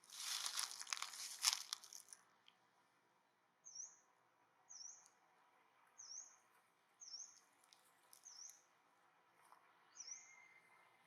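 A burst of rustling and crunching for about two seconds, then a bird repeating one short, high chirp roughly once a second.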